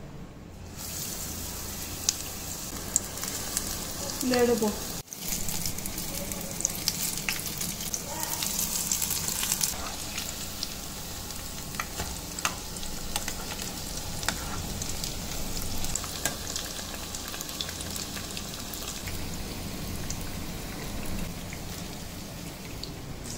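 Gram-flour-battered bajjis deep-frying in hot oil: a steady sizzle with frequent sharp crackles.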